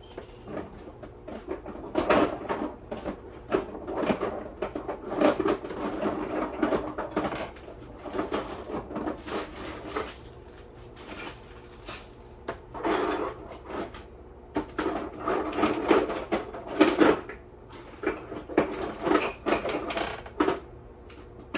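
Rummaging through hard plastic parts and objects on a desk: irregular clattering, knocking and shuffling as things are picked up, moved and set down.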